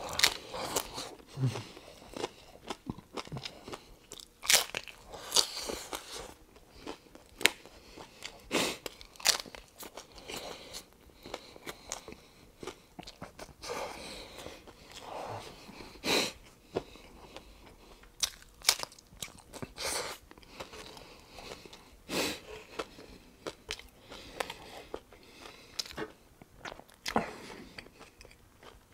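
Close-up crunching and chewing of a crisp hard corn taco shell filled with beef: irregular sharp crunches with quieter chewing between them.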